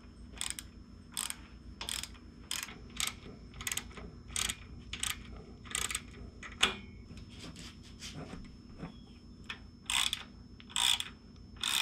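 Hand ratchet clicking as a bolt is run in, in short strokes about two a second. The strokes pause for two or three seconds, then come back as a few more near the end.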